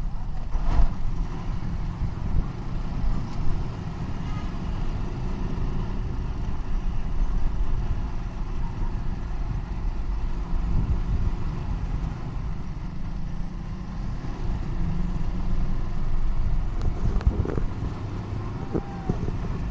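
Motorcycle under way in town traffic: a steady engine and road rumble, heavy in the low end, with the engines of nearby motorcycles and rickshaws mixed in.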